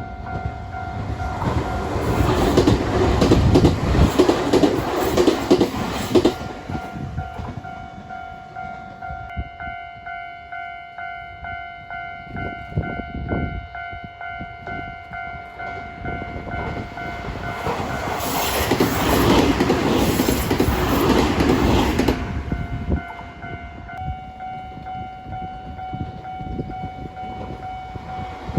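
Nankai Main Line trains passing over a level crossing, their wheels clattering over the rail joints: one train goes by in the first few seconds and another about two-thirds of the way through. The level-crossing warning bell rings in a steady rhythm throughout.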